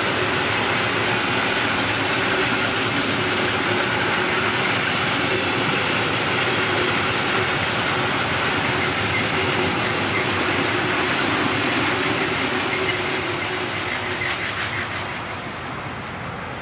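Long freight train of hopper wagons rolling past: a steady rumble of steel wheels on rail with clickety-clack, fading over the last few seconds as the end of the train goes by.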